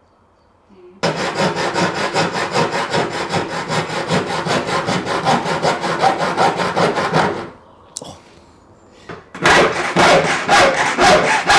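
Hacksaw blade cutting through a roller blind tube in quick back-and-forth strokes, about four or five a second. A long run of sawing stops at about seven and a half seconds, and a second run starts about two seconds later.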